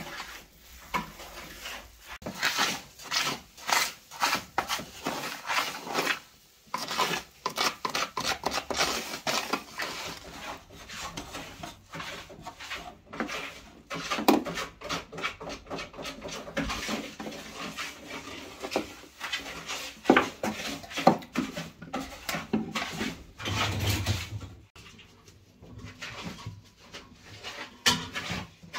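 Irregular rubbing, handling and knocking sounds of sausage-meat preparation: hands kneading minced pork in an enamel bowl, then kitchen utensils and a knife cutting cooked liver on a wooden board.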